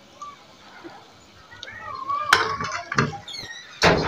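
Wire skimmer knocking against the wok and plate as fried samosa rolls are lifted out of the oil and set down. There are three knocks in the second half, the last one loudest.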